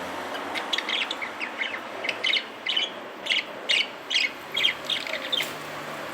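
Small pet parrots chirping: a run of short, sharp calls, about two a second, stopping near the end.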